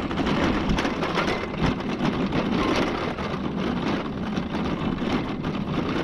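Vehicle driving: steady engine and road noise with many small rattles and clicks.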